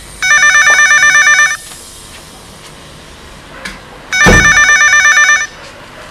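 Electronic desk telephone ringing twice, each ring a rapid warbling trill about a second and a half long, the second starting about four seconds in. A soft thud comes as the second ring begins.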